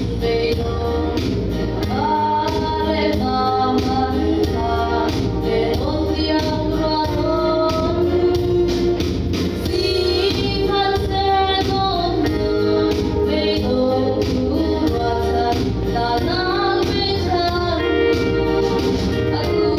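A gospel worship song: a woman's voice singing a melody over instrumental backing with a steady beat.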